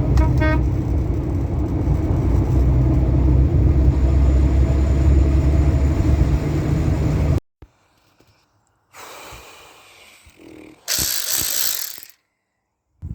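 Keeway RKV 125 motorcycle on the move: a steady engine and wind rumble that cuts off abruptly about seven seconds in, followed by faint scattered sounds and a short burst of noise near the end.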